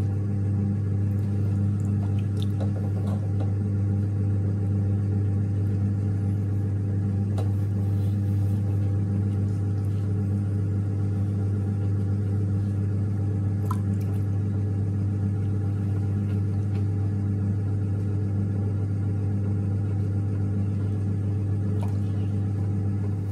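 Electric pottery wheel running with a steady low hum from its motor as it spins, with a few faint clicks on top.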